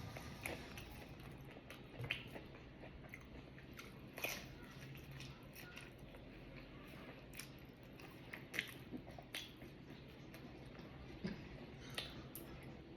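Close-up mouth sounds of a person chewing and biting pizza, with wet chewing and a few sharp crunches spaced a second or more apart.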